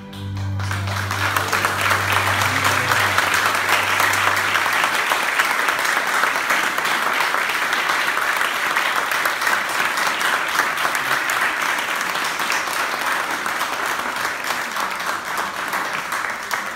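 Congregation applauding steadily after a dance performance, while the final low note of the accompanying music fades out over the first few seconds.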